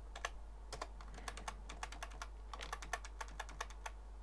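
Computer keyboard typing: about twenty irregular keystroke clicks, quickening in a short run about two and a half seconds in, over a low steady hum.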